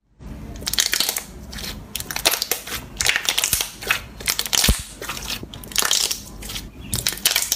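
Clear, bubble-filled slime squeezed and pressed by hand, its trapped air bubbles popping in crackling bursts roughly once a second.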